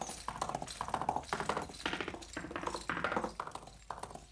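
Cartoon sound effect of a horse's hooves clip-clopping at a trot, about three beats a second, fading away near the end as the horse rides off.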